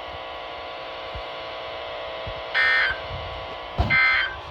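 Weather radio receiver sounding the EAS/SAME digital data bursts that end a Required Weekly Test: two short, harsh, buzzing screeches about a second apart over a steady radio hum, with a click just before the second burst.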